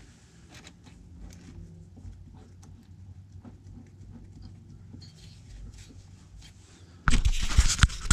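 Low steady hum with faint scattered clicks and ticks while a drill bit is worked into a milling machine's chuck by hand. About seven seconds in there is loud rubbing and knocking as the camera is picked up and moved.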